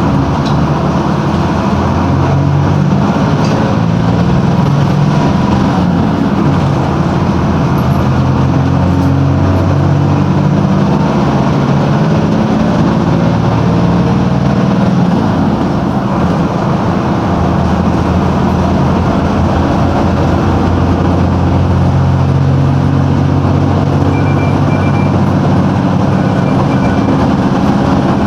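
Mercedes-Benz OF-1721 bus's OM-366LA turbocharged six-cylinder diesel engine running loudly. Its note rises and falls several times as the engine speed changes.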